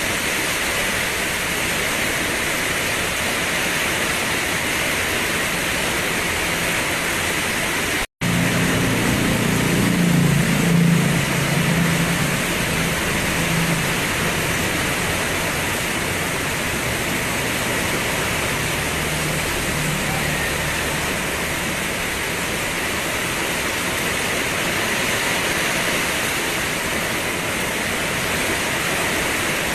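Steady hiss of rainfall. About eight seconds in the sound drops out for a split second, then a low rumble swells for several seconds and fades, with a fainter rumble again later.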